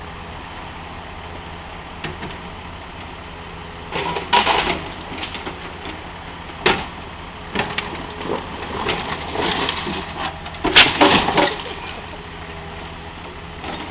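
Komatsu excavator's diesel engine running steadily while its bucket works the wrecked Dodge car, with a string of metal crunches, knocks and clangs starting about four seconds in, the loudest near the end.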